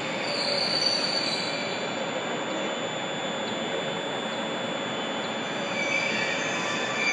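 Class 156 diesel multiple unit pulling slowly into a platform, its wheels squealing on the rails: a thin high squeal about a second in and another near the end, over the steady rumble of the train.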